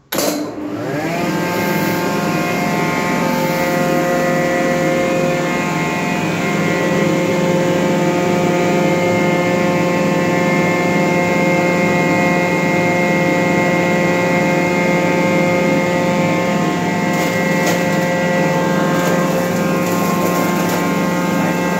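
Electric ginger garlic paste grinding machine switched on, its motor running up to speed within about a second, then running with a steady hum. A few brief crackles near the end as garlic cloves are tipped into the hopper.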